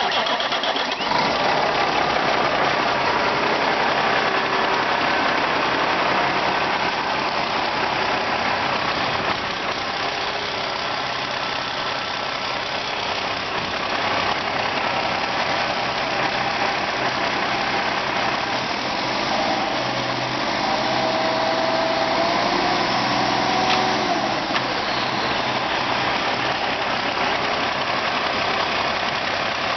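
2007 Cummins ISX inline-six diesel engine running steadily at idle, a good-running high-mileage engine.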